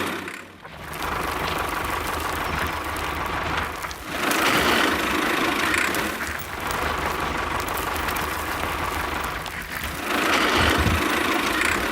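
Vehicle engine running, growing louder and softer in surges every few seconds.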